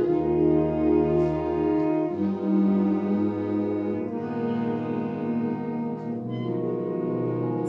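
Symphonic wind band playing slow, sustained chords with brass. A deep bass note sits under the first two seconds, and the harmony shifts about every two seconds.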